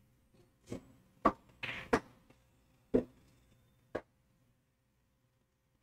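Pool balls clicking and knocking as a shot is played: the cue tip striking the cue ball and balls hitting ball and cushion. Five sharp knocks come over about three seconds, the middle three the loudest.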